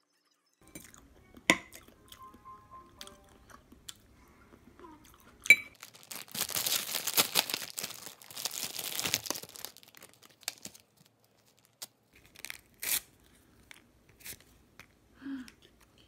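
Clear plastic snack-bread wrapper crinkling and tearing as it is pulled open, a dense rustle lasting about four seconds from roughly six seconds in. Two sharp clicks come before it, and small rustles and taps follow.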